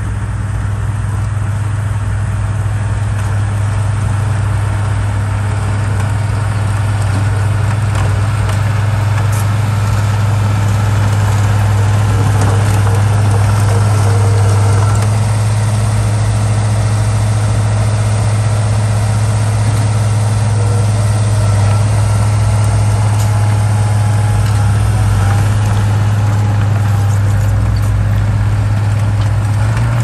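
Diesel engines of a crawler bulldozer and dump trucks running at work, a steady low drone that grows a little louder around the middle as the bulldozer comes close.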